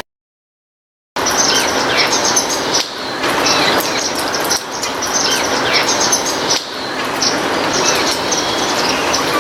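Steady heavy rain with many small birds chirping rapidly and high-pitched over it, starting suddenly after about a second of dead silence.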